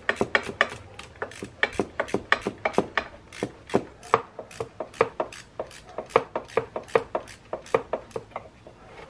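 Rapid, uneven run of sharp clicks, about four or five a second.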